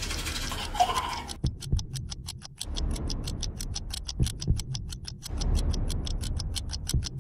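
Fast, steady ticking like a watch, about five ticks a second, as the rhythm of a tense film score, with low pulses and swells beneath it. A hiss covers the first second or so and then drops away, leaving the ticking clear.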